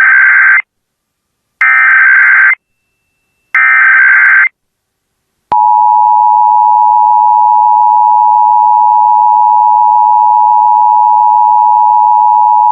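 Emergency Alert System activation: the tail of the first digital SAME header burst and then two more, each about a second long and a second apart. About two seconds later the steady two-tone EAS attention signal (853 and 960 Hz) cuts in and holds, the lead-in to the spoken nationwide test message.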